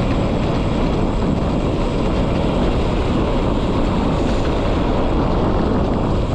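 Steady, loud rushing and rumbling of wind buffeting a GoPro's microphone while riding a road bike at speed.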